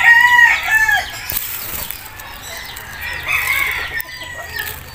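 Rooster crowing: one crow trails off about a second in, and a second, fainter call from the birds follows a little past three seconds.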